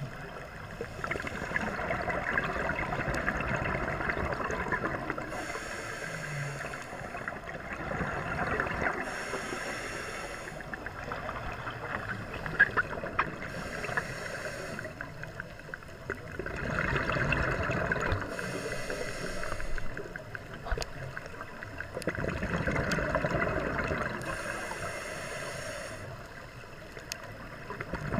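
A scuba diver breathing through a regulator underwater: a hiss on each inhale and a gurgling rush of exhaled bubbles between, about one breath every four to five seconds.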